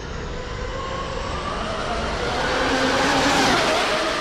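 HongNor X3GT 1/8-scale RC car's TP 4070 2200Kv brushless motor and drivetrain whining at speed. The whine rises in pitch and loudness as the car approaches, is loudest about three and a half seconds in as it passes, and then drops in pitch. Wind rumbles on the microphone throughout.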